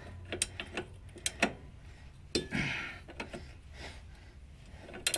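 Hand tools clinking and tapping against the shock absorber and its metal mounting hardware: a handful of sharp, irregular clicks, the loudest about two and a half seconds in, followed by a short scrape.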